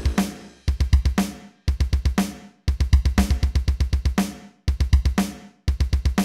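Background rock music in a stop-start drum break: short bursts of rapid drum hits about once a second, with brief silences between.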